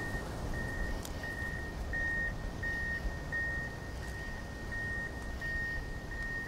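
Vehicle backup alarm beeping steadily, about one and a half high beeps a second, over a low rumble of distant engines.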